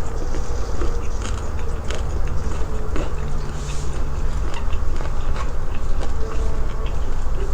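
Close-up biting and chewing of crispy pork fat, with irregular crisp crunches over a steady low rumble of chewing.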